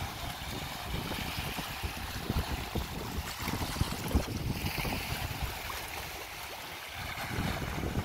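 Small waves washing and hissing over dark basalt rocks at the shoreline, one surge swelling about halfway through, with gusty wind buffeting the microphone.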